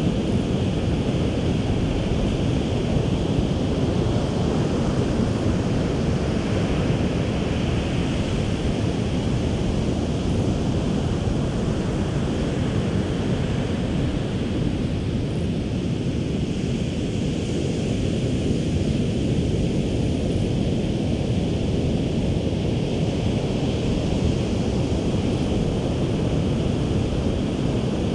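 Pacific Ocean surf breaking on the beach, a steady rush of waves, with wind buffeting the microphone.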